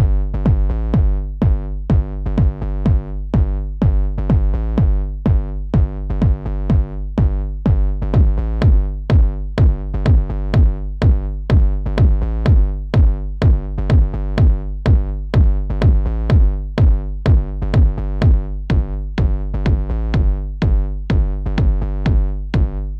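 Electronic background music with a steady drum-machine beat over sustained synthesizer chords.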